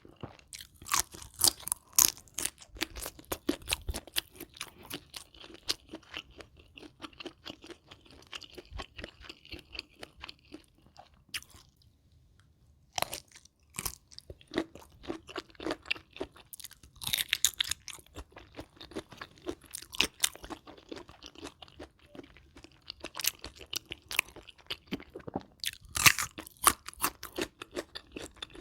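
Close-up eating sounds: a person chewing mouthfuls of crisp food with many sharp crunches, and a short pause about twelve seconds in.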